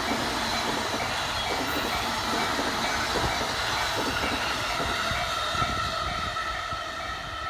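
JR electric commuter train running past at the level crossing, its wheels clattering over the rail joints under a steady rumble, with the crossing's warning alarm ringing in steady tones above it; the train noise eases off near the end.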